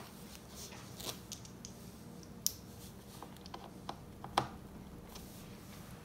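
Scattered light clicks and taps of a small precision screwdriver on the screws and bottom cover of a laptop as the screws are checked for tightness, with two sharper clicks about two and a half and four and a half seconds in.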